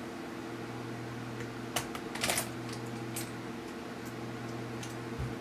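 A few light clicks and taps from a small screwdriver and tiny screws being fitted into the side rails of a laptop LCD panel, over a steady low hum.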